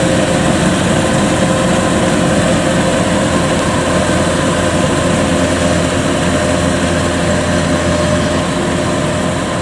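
Kubota DC-93 combine harvester running under load as it cuts lodged rice: a steady, loud engine-and-threshing-machinery drone with a constant whine over it.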